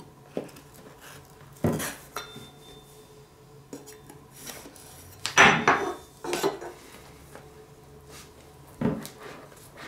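A cardboard phone box being handled and opened on a wooden tabletop. A handful of sharp knocks as it is set down and turned, the loudest cluster about halfway through, with quiet handling between.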